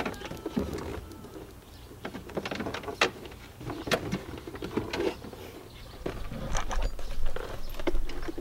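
Scattered clicks, knocks and rustling as hands work the plastic interior trim, connectors and wiring around a car's centre console. A low rumble of the handheld camera being handled comes in during the last couple of seconds.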